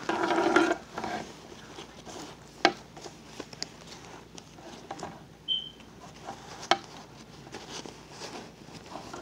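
Small hard objects being handled: scattered light clicks and taps, with sharper knocks about a third of the way in and again past the middle.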